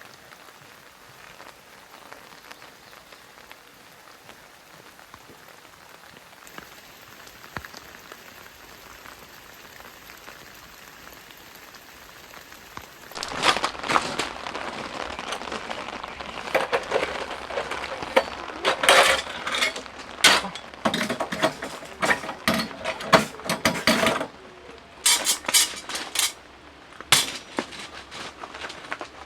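Steady patter of rain on a tent. About halfway through, much louder irregular clicking and clinking of objects being handled starts, in uneven clusters.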